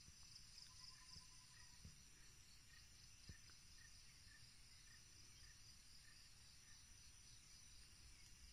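Faint, steady insect chorus of tropical forest, with a soft chirp repeating about twice a second.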